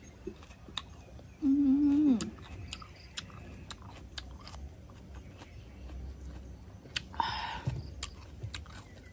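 Close-up mouth sounds of a person chewing a piece of sauced fruit, with many small wet clicks. About a second and a half in comes a short held "mmm" hum that drops at its end, and near the end a brief breathy sound.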